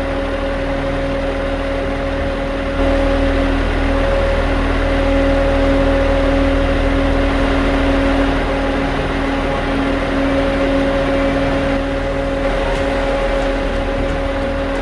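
Concrete truck engine running steadily at a constant speed, getting a little louder about three seconds in.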